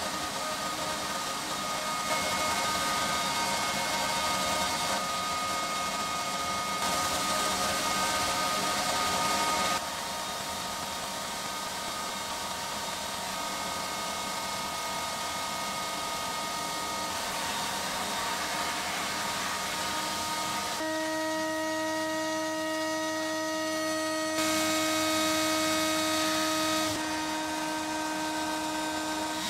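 Sandblasting cabinet in use: the steady hiss of the air-driven blast gun throwing abrasive, with a motor hum underneath. The sound shifts in level and tone at several cuts.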